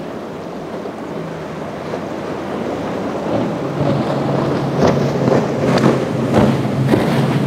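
Outboard engines of a Bluewater center-console boat running hard through rough inlet chop. A steady low engine hum grows louder as the boat comes closer, and from about halfway through, splashes of hull and spray hitting the waves stand out over the wash of surf. Wind buffets the microphone.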